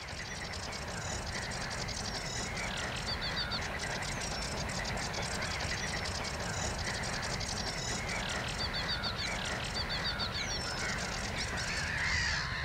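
A mixed flock of waterbirds calling over one another: many short calls, quick chattering trills and downward-sliding cries, over a steady low rumble.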